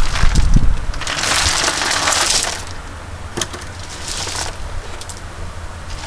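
White decorative rocks poured out of a plastic crate, clattering and rattling onto a growing pile of stones, loudest in the first two and a half seconds. After that, scattered clicks of single stones knocking together as they are shifted by hand.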